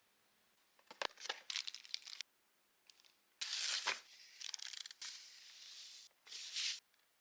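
Packaging being torn and crinkled in several noisy bursts, the longest one near the middle.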